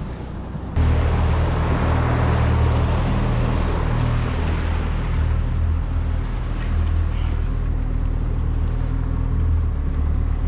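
Boat's outboard motor running steadily under way, with wind and water rushing past; the sound jumps suddenly louder about a second in.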